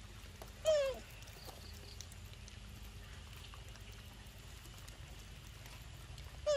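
A young macaque's short, falling cry, once about a second in and again at the very end.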